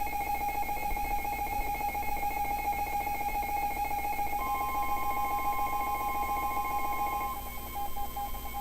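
A buzzing electronic tone runs throughout, joined about halfway through by a plain, steady alarm tone: the NOAA Weather Radio warning alarm tone that signals a warning message is about to be broadcast.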